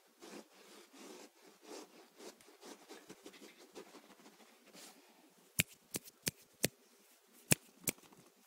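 Soft scratching and rustling of a puppy playing at a canvas bag on carpet. More than halfway in comes a run of sharp, loud clicks, about seven in three seconds, much louder than the rustling.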